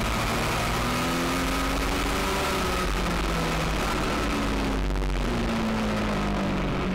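Legend race car's Yamaha four-cylinder motorcycle engine running steadily, its pitch rising and falling gently, with a constant rush of wind and road noise.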